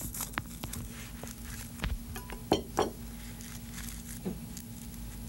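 Kitchen knife slicing through a California roll on a bamboo rolling mat: scattered clicks and knocks as the blade cuts down onto the mat, the two loudest close together about two and a half seconds in, over a steady low hum.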